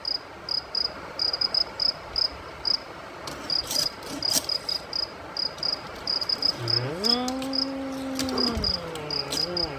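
A cricket chirping in repeated short, high-pitched chirps, with a few light taps as plastic toys are set down on a wooden table. About seven seconds in, a person makes one long drawn-out vocal note that rises, holds and falls away.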